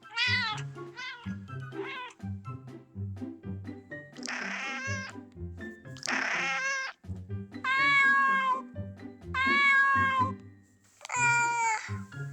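Cats meowing, one call after another, over background music: a few short meows rising and falling in pitch, two harsher, raspier cries, then two long steady meows and one more near the end.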